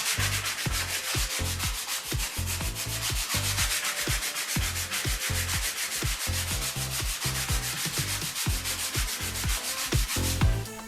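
Sandpaper being worked over a piece of timber, a steady scratchy rubbing as the edges and surfaces are sanded smooth; it stops shortly before the end.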